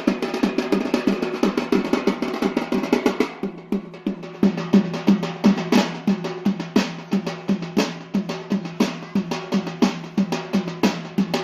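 Drumming for the Yemeni bara' dance: fast, even strokes on traditional drums, over a steady low drone. The drumming thins briefly about three and a half seconds in, then picks up again.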